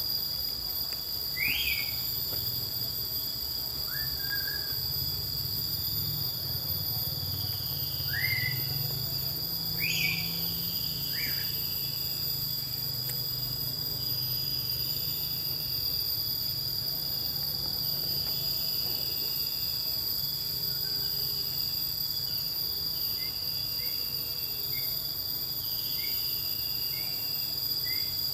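Insects, crickets or similar, shrilling in a steady, unbroken high tone, with a bird's short rising whistled calls over the first ten seconds or so and shorter repeated chirps after that, over a low rumble.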